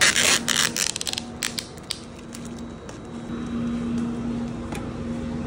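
Crinkling of plastic packaging and rattling of frozen fruit pieces in a plastic cup, a dense run of crackles in the first two seconds thinning to scattered clicks, over a steady low hum.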